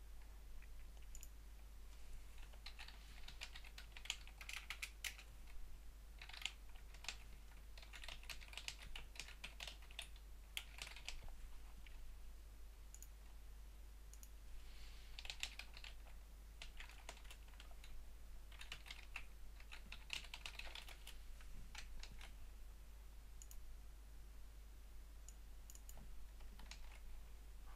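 Computer keyboard typing in several quick bursts, with single clicks in between, faint over a steady low hum.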